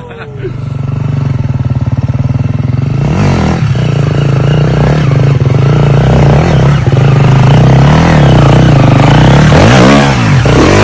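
Dirt bike engines revving: a steady run at first, then the pitch rising and falling with the throttle, with quick throttle blips near the end.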